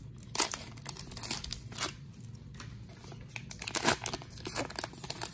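Wrapper of a 2012 Gypsy Queen baseball card pack being torn open by hand: several sharp rips with crinkling, the loudest just before four seconds in.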